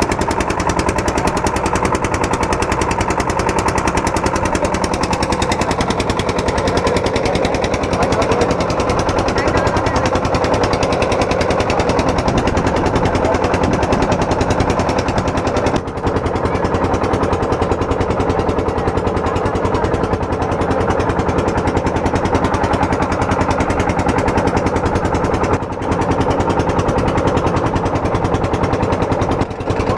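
Ferry boat's engine running steadily with a rapid, even chugging.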